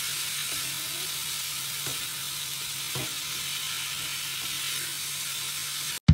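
Sliced bitter gourd (ampalaya) sizzling steadily in hot oil in a wok as a wooden spatula stirs it, with a few faint scrapes and knocks of the spatula against the pan.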